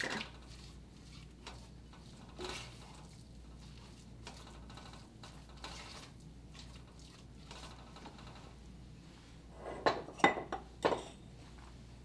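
Silicone spatula stirring a stiff sugar-and-butter sauce in an enameled cast-iron pot, faint, then a quick run of sharp clinks and knocks of kitchenware about ten seconds in.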